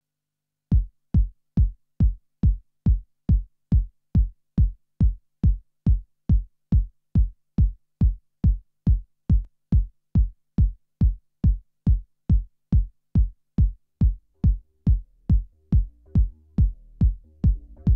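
Electronic dance music: a lone kick drum beating steadily about two and a half times a second, with a bass line and synth notes coming in near the end.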